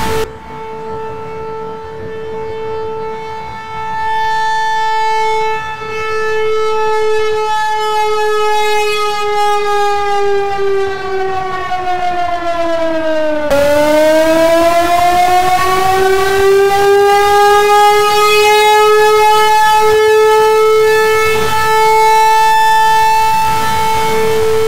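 Outdoor civil-defense warning siren sounding, as used to warn of tornadoes: one steady, loud wailing tone that slowly sinks in pitch, then about halfway climbs back up to its full steady pitch.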